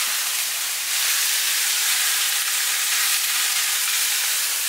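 Crumbled tofu sizzling steadily in a frying pan that is a little too hot, as it is broken up into the pan by hand; the sizzle gets a little louder about a second in.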